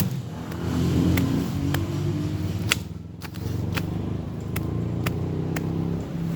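An engine running, its pitch shifting up and down, with sharp clicks scattered through it and a short lull about three seconds in.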